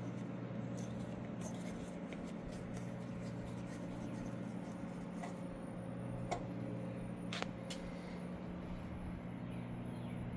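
Steady low hum with a faint hiss and a thin high tone, broken by a few faint clicks, the sharpest about six and seven seconds in.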